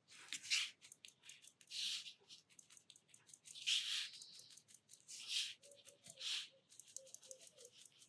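Pen tip scratching on watercolour paper in short strokes: about five soft scratches with light ticks between them.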